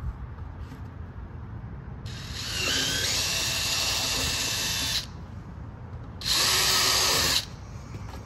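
DeWalt 20V cordless drill with a quarter-inch twist bit drilling a hole through a plastic dash tray: one run of about three seconds starting about two seconds in, then a shorter burst of about a second.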